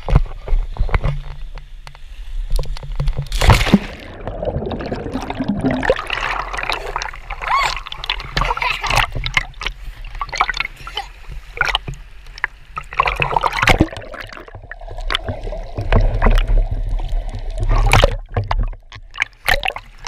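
Water splashing and sloshing right against an action camera held at the surface by a swimmer, with many irregular slaps and knocks of water on the camera.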